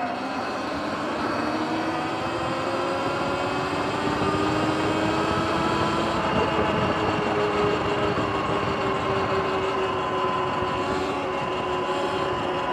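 Sur-Ron electric dirt bike's motor whining as the bike rides, its pitch rising as it picks up speed over the first several seconds and then holding steady while cruising, over a constant rush of wind and road noise.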